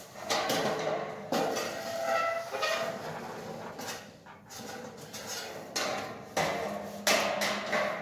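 Metal clanks and knocks from a perforated galvanized steel cable tray section being handled and fitted overhead. There are several sharp knocks a second or so apart, each ringing briefly, and the loudest comes near the end.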